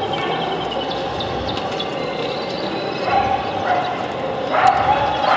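Busy exhibition-hall din of crowd chatter, with a dog barking, loudest about three and four and a half seconds in. Small cage birds twitter faintly near the start.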